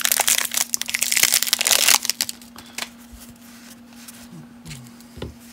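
Cellophane wrapper of a baseball-card cello pack crinkling and crackling as it is pulled open by hand, for about two seconds. Then quieter handling of the stack of cards, with a few light clicks.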